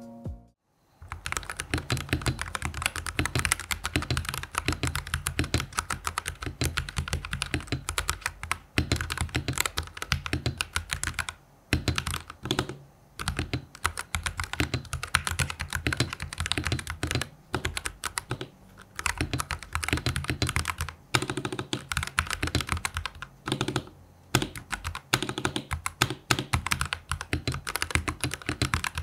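Typing on a Cooler Master CK720 65% mechanical keyboard, built with pre-lubed switches and stabilizers and two layers of silicone damping inside: a steady run of keystrokes starting about a second in, broken by a few short pauses.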